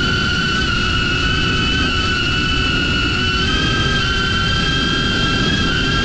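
DJI Avata FPV drone with Axis C175 motors, its propellers whining steadily in flight, the pitch stepping up and down slightly a few times as the throttle shifts, over a low rumble of strong wind.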